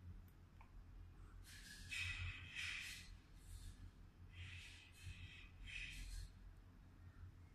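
Faint breathing close to the microphone: several soft breaths about one and a half to six seconds in, over a low steady hum.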